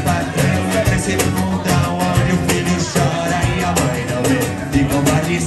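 A live acoustic band playing: a nylon-string acoustic guitar strummed over an electric bass line, with a cajón keeping a steady beat and a man singing.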